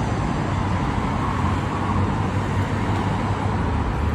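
Steady rumble and rushing noise of a moving public-transport vehicle, heard from inside while it runs along.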